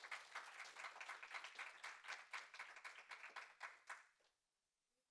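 Audience applauding at the close of a talk: dense clapping from many hands that dies away about four seconds in.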